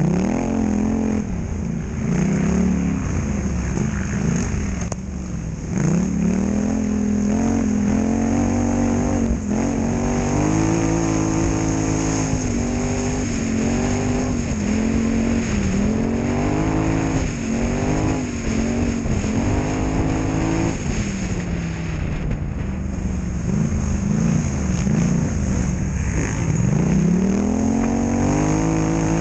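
Polaris Scrambler XP1000 quad's twin-cylinder engine revving up and down hard under racing throttle. Its pitch climbs and falls again every second or two, then rises in one longer climb near the end.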